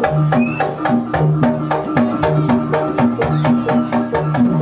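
Gejok lesung: wooden pestles beating a rice-pounding trough (lesung) in a fast, even rhythm of about six strikes a second, with low pitched notes repeating beneath the knocks.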